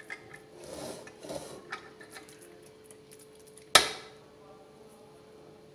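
Metal slotted spoon scraping and clinking as carrot halwa is served onto a ceramic plate: a scatter of soft scrapes and taps, then one sharp loud clink with a brief ring just before four seconds in.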